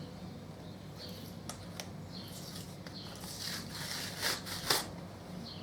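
Plastic shrink-wrap packaging crinkling and crackling as it is picked at and pulled by hand, with a few small clicks at first and a run of sharper crackles from a little past two seconds in, loudest near the end.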